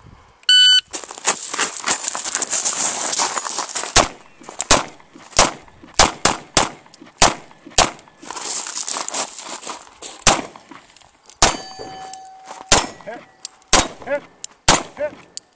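A shot timer beeps once, and then a Beretta PX4 9mm pistol fires about a dozen shots in quick strings, with a pause in the middle. A metallic ring follows some of the later shots.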